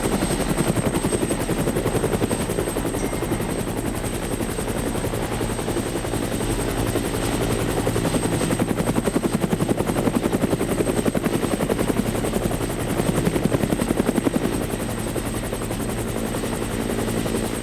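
Helicopter rotor chop running steadily, with a fast even beat that swells and eases slightly in loudness, and a thin high whine held over it.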